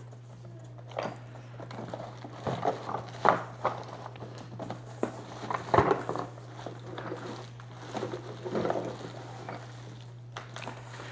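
Cardboard box and packaging being handled and opened: irregular rustling, crinkling and scraping with a few sharper knocks, the loudest about three and six seconds in, over a steady low hum.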